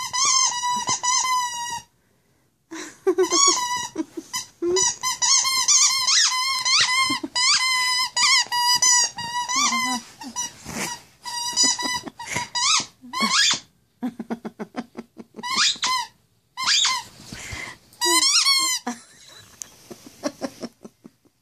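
Plush squeaky toy being chewed by a puppy: rapid runs of high-pitched squeaks, one with each bite, broken by short pauses.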